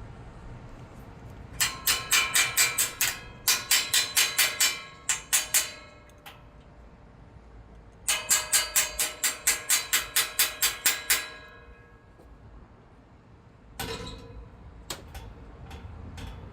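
Metal gate hardware being struck with a hammer: quick runs of ringing blows, about six a second, in two groups split by a pause of about two seconds, then a few lighter knocks near the end.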